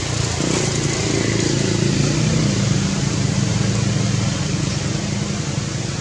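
A low, steady engine hum, like a motor vehicle running nearby, over a background hiss; it swells slightly in the middle and eases toward the end.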